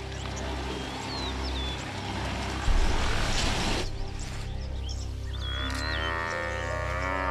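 A herd of Cape buffalo scrambling through dust makes a dense rushing noise that stops suddenly partway through. Then an injured, fallen buffalo lets out one long bellow near the end. Birds chirp over a steady music score.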